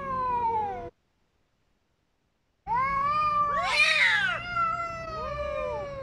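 Two cats caterwauling at each other in a fight standoff. A long, wavering yowl cuts off about a second in, and after a pause another long yowl starts, with a second, higher-pitched cat's cry overlapping it in the middle.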